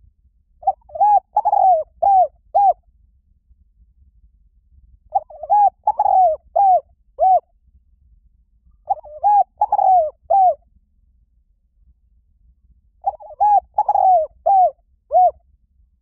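Spotted dove cooing: four phrases of five or six quick, arched coos each, a few seconds apart.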